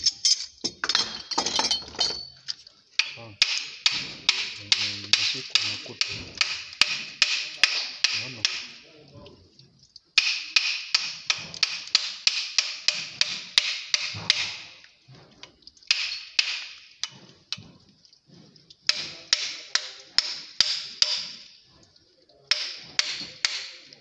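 Quick, even metallic tapping, about three to four strikes a second, each with a short ring. It comes in runs of a few seconds with brief pauses, as a hand tool strikes metal pipe fittings.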